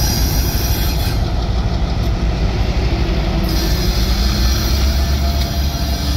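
EMD GP38-2 diesel locomotives running past, a steady low diesel rumble mixed with the noise of wheels on the rails. About three and a half seconds in the sound changes and a faint high wheel squeal joins it.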